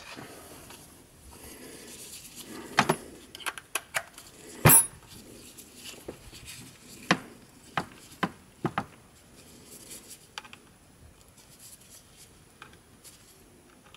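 Handling noise from a small plastic Bluetooth speaker, a JBL GO 2, being picked up and turned over and a charging cable being fitted to it: scattered clicks and knocks, the loudest about five seconds in, with a quick cluster of clicks a few seconds later.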